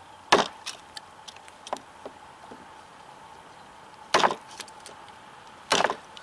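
Large chopping knife cutting into a spruce board with light wrist-flick chops: three sharp wooden chops, one about a third of a second in and two more close together near the end, with chips splintering off the wood.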